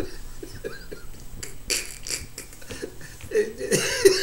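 A man laughing: breathy bursts of laughter about two seconds in, then a run of short voiced laughs near the end.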